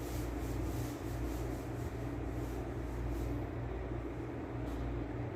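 Steady low machine hum with a droning undertone. A faint hiss in the upper range pulses about three times a second and dies away about three and a half seconds in.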